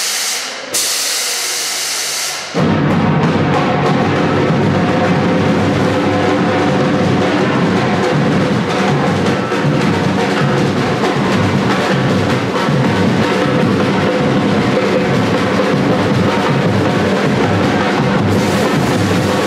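Two bursts of hissing, then music with a drum-kit beat and percussion that starts about two and a half seconds in.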